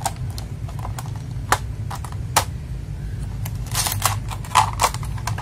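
Scattered sharp plastic clicks and clatter of small mechanical keyboard switches being picked through and handled, with a quick cluster of clicks near the end, over a low steady hum.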